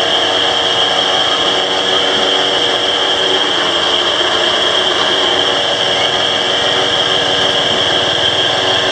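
Engine-driven sugarcane juice press running steadily as cane is fed through its rollers: a loud, even motor drone with a high whine on top.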